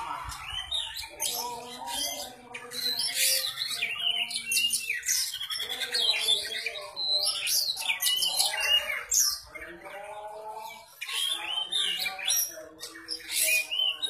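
Caged oriental magpie-robin (kacer) singing a long, varied run of short whistled phrases that slide up and down in pitch, mixed with rasping notes, as it practises copying other birds' songs.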